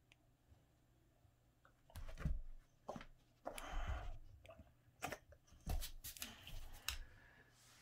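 Boxer dog pouncing after a laser dot: paws thumping and claws clicking and scrabbling on a rug and laminate floor. A few separate thuds and clicks, with a scratchy scuffle about three and a half seconds in.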